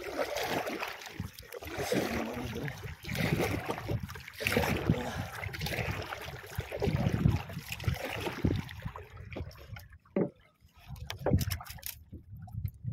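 Uneven rushing and rumbling noise of water and wind around a small outrigger fishing boat, mixed with the rubbing of a hand and arm against the phone. It thins out about nine seconds in, and a few sharp clicks follow near the end.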